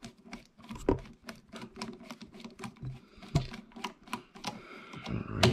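Hand screwdriver turning out small screws from an airsoft gun's pistol grip: a run of small, irregular clicks and light taps, a few a second, with two or three sharper knocks among them.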